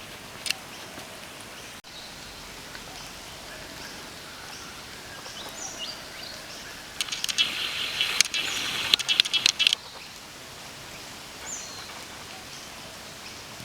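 Outdoor ambience: a steady background hiss with scattered high bird chirps, and a louder burst of rapid high chattering from about seven to ten seconds in.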